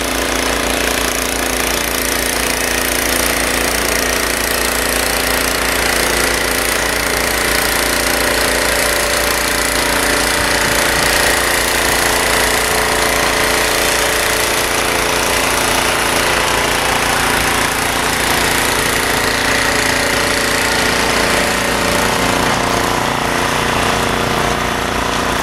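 Ariens Deluxe 30 snow blower's 306cc single-cylinder engine running steadily under load, a constant mechanical drone with a buzzing, hammering edge.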